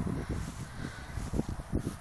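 Footsteps and rustling through tall dry grass, heard as irregular soft low thumps with a faint brushing hiss.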